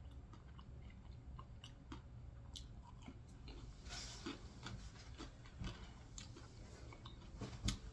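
Faint chewing of food with scattered small mouth clicks.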